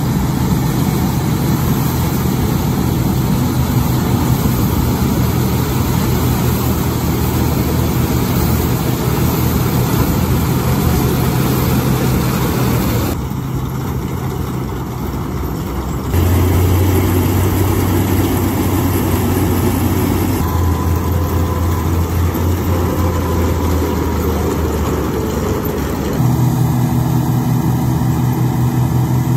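International Harvester 403 combine's C263 gasoline engine running steadily at work. The sound changes abruptly several times, shifting in pitch and loudness.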